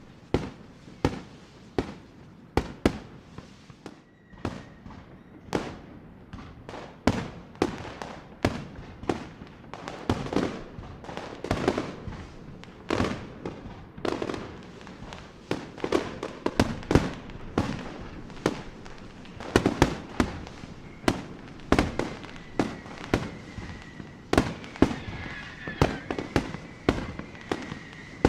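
Fireworks bursting in a steady run of sharp bangs, about one or two a second, with crackle after some of them. A thin whistle comes in briefly about four seconds in and again through the last several seconds.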